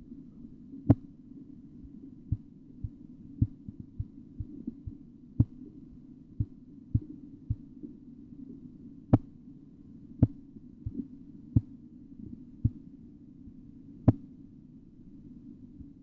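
Korotkoff sounds heard through a stethoscope: sharp pulse taps, roughly one a second but unevenly spaced and varying in strength, over a steady low hum.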